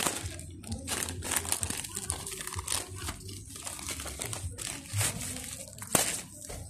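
Plastic courier mailer bag and bubble wrap crinkling and rustling in irregular crackles as a parcel is pulled out of the torn-open bag. A sharp crackle about six seconds in is the loudest.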